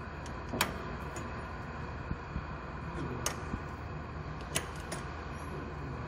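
Sharp clinks of a wrench on a lathe's four-way tool post bolt as the cutting tool is reset, several short clicks at uneven intervals over a steady low machine hum.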